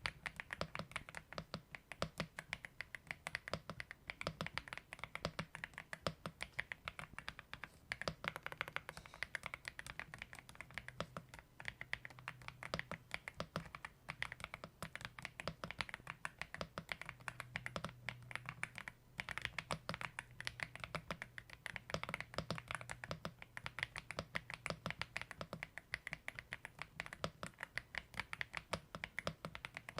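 Continuous typing on an AULA F75 mechanical keyboard: a fast, steady stream of keystrokes, several a second, without pause.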